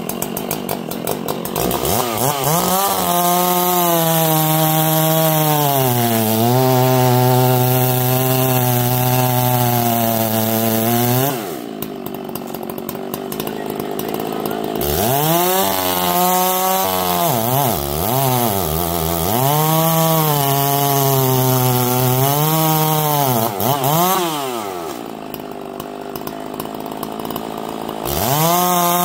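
Two-stroke chainsaw revving up from idle and cutting into black walnut wood, its pitch sagging under load and recovering. It drops back to idle about a third of the way in and again near the end, revving up between and once more at the close.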